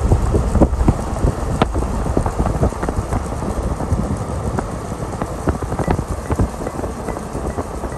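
Road noise of a moving vehicle: a steady low rumble with frequent small irregular knocks and rattles.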